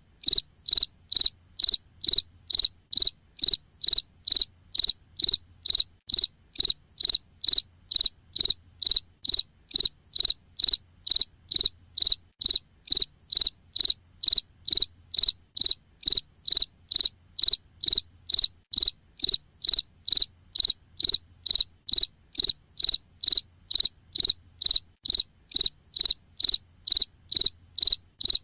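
Cricket chirping: short high-pitched chirps repeating evenly, about two a second, over a faint steady high hum.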